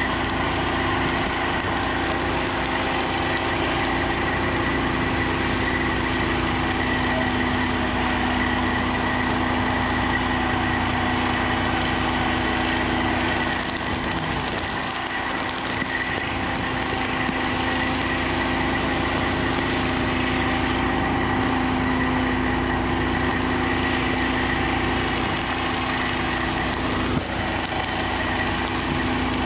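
Fire engine running steadily at the scene, a constant engine hum with a high steady whine above it, dipping slightly for a moment about halfway through.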